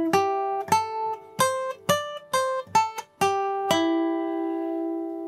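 Steel-string acoustic guitar picked one note at a time: a slow lead-guitar practice phrase of about nine single notes, the last one left ringing and slowly fading.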